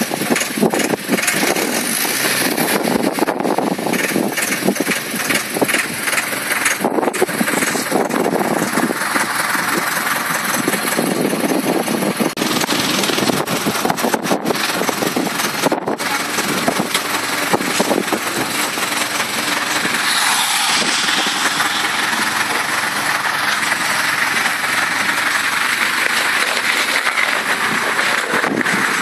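Farm tractor engine running while its front loader lifts and places a scrap car, with many knocks and rattles through the first half, then a steadier running noise.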